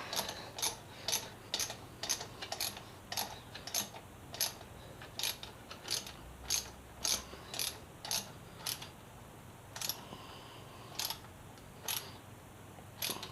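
Ratchet wrench clicking as a bolt is tightened, about two clicks a second, slowing to single clicks about a second apart near the end.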